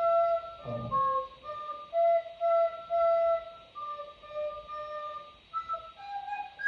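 A recorder playing a simple melody: single clear notes stepping up and down, about two a second. A short burst of voice cuts in about a second in.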